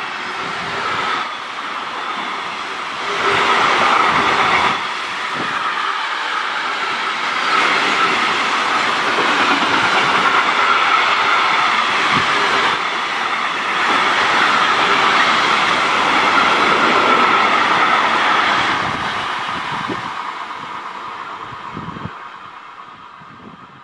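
Container freight train passing at speed, its wagons' wheels running and clattering on the rails in a loud, steady noise. Over the last few seconds the sound fades away as the train recedes.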